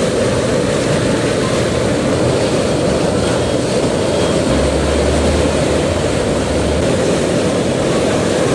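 Floodwater rushing and churning through a culvert and down a swollen river: a loud, steady, deep rush of water. A low hum runs under it for about two seconds in the middle.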